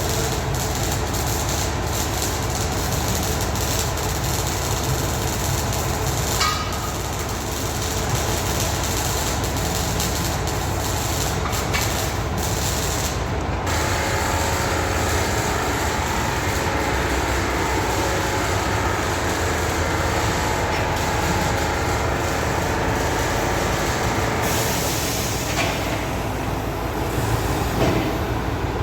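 Continuous loud machinery noise: a steady low hum under a broad hissing, rattling din, with scattered clicks and knocks.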